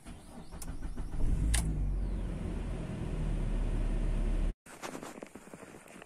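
Car engine running, heard from inside the cabin: a low rumble that grows louder over the first second and stops suddenly about four and a half seconds in. Faint crunching steps on snow follow.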